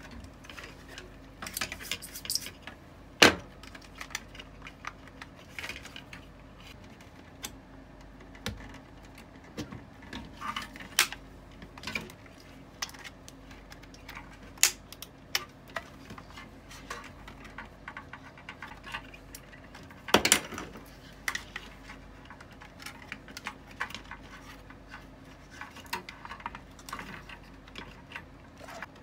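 Dehumidifier parts being handled during disassembly: scattered small clicks, taps and knocks of plastic and metal, with two sharper knocks about three seconds in and about twenty seconds in, over a faint steady hum.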